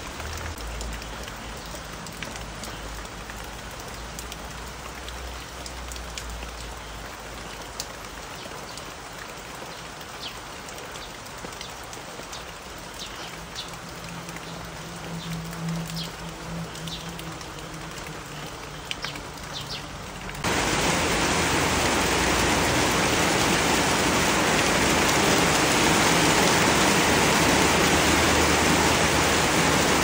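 Steady rain falling on garden foliage, with a few faint, short, high bird chirps in the middle. About two-thirds of the way through it switches abruptly to a much louder, denser downpour.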